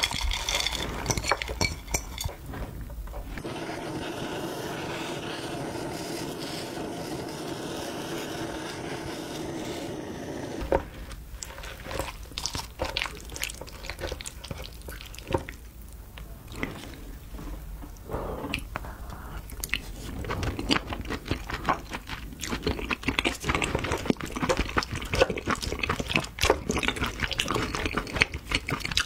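A wooden spoon stirring and scraping a sticky mix of crab meat, melted cheese and sauce inside a crab shell, with many close wet clicks and squelches that come thicker toward the end. Before that, toppings are tipped from a bowl into the shell, then a steady hiss runs for several seconds.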